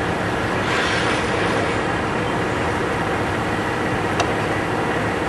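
An engine running steadily, with a single sharp click about four seconds in.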